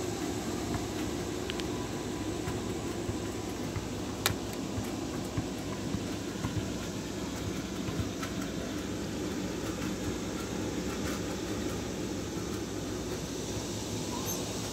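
Steady background noise, a low rumble with hiss, and one sharp click about four seconds in.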